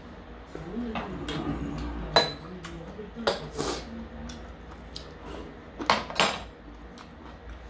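Stainless steel tableware clinking: a spoon or ladle knocking against metal bowls and a pot in a few sharp, ringing clinks, the loudest about two seconds in and a pair near six seconds.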